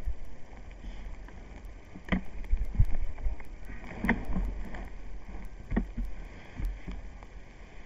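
Handling noise on a mounted camera's microphone: a low rumble with a few scattered soft knocks and rustles.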